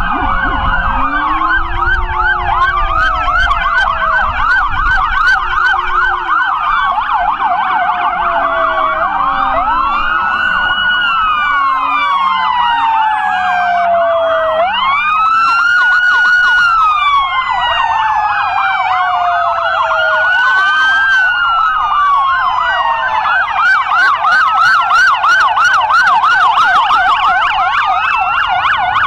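Several vehicle sirens sounding together: fast yelps layered over slower wails that rise and fall.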